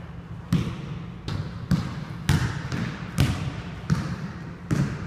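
Basketball bouncing on a hardwood gym floor: about seven uneven thuds, each ringing on with the echo of the large hall.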